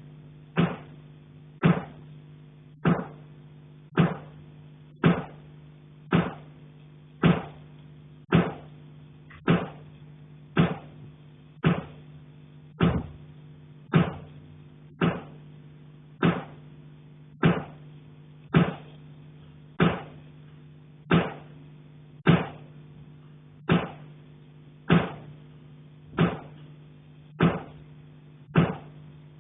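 Someone knocking on a pipe in the attic: steady, evenly spaced strikes about once a second, each ringing briefly, over a steady low hum.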